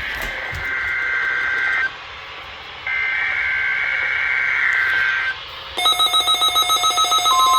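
NOAA Weather Radio SAME header data bursts from the radios' speakers: two buzzy two-tone warbles, each a couple of seconds long. About two seconds from the end, the Midland weather radios' own pulsing alert beep sets in. Near the end the steady 1050 Hz weather alarm tone joins it, which is what wakes the receivers for an alert.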